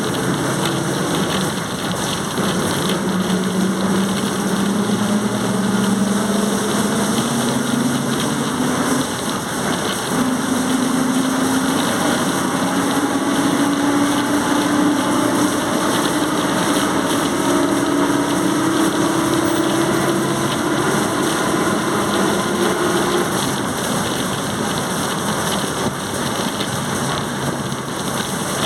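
Volkswagen 17.230 OD bus under way with its transmission whining. The tone climbs steadily in pitch as the bus gathers speed, stepping up once about a third of the way in and fading out near the end, over steady engine and road noise.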